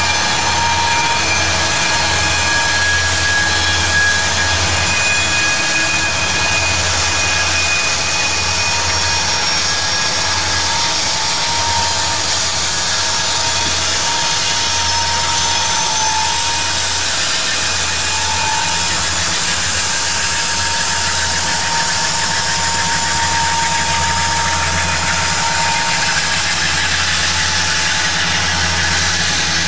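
A line of diesel-electric freight locomotives (Cotton Belt, Southern Pacific and Union Pacific units) passing close by, their engines running under load as they pull upgrade, with a steady low drone and a high whine on top.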